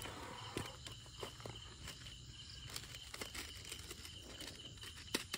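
Steady chorus of night insects, crickets, chirping in a constant high band, with scattered footsteps and small clicks from someone moving on leaf-littered ground. A brief crinkling rustle comes right at the start.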